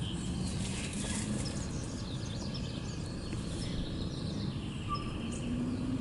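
Outdoor ambience: a steady low rumble with faint, scattered songbird chirps and a faint hum.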